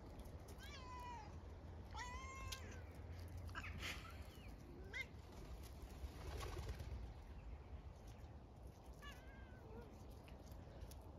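Several short, high-pitched, meow-like cries from a small animal at rough play, some falling in pitch: about half a second in, around two seconds, near four and five seconds, and again about nine seconds in. A low rumble runs underneath.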